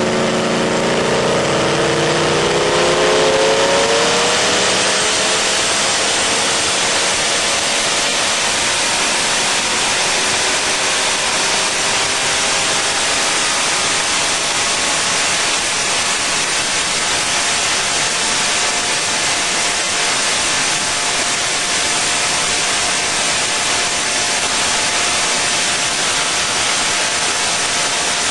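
Twin-turbo 4.5-litre Nissan boat engine revving up, its pitch climbing over the first few seconds, then running steadily at high revs under a dense rush of noise.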